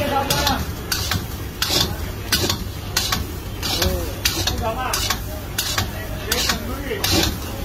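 Long metal spatula scraping and clanking against a large metal wok as rice is stirred and tossed, a stroke roughly every half second to second, over a steady low hum.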